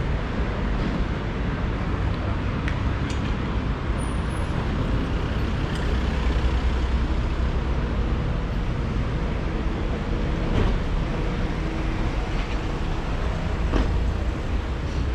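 City street traffic noise: a steady hum of motor vehicles with a low rumble that grows louder for a few seconds in the middle, as a vehicle passes close by.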